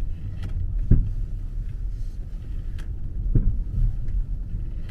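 Two dull clunks from the rear of a 2009 BMW 5 Series, about a second in and again near three and a half seconds, over low road rumble heard inside the cabin while the car turns at low speed. The mechanic takes the knock for something loose banging about in the back, not the loose rear ball joint.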